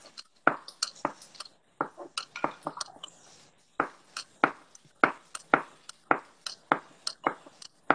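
Knife slicing garlic cloves on a cutting board: a run of short, sharp knocks of the blade on the board, about two a second and slightly uneven.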